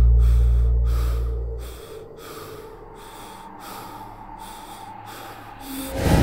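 Quick, heavy panting breaths of a frightened man, about one and a half a second. A deep horror-score boom fades out under them over the first two seconds, and a sudden loud stinger hits near the end.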